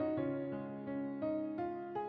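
Background music: a soft piano melody of sustained notes.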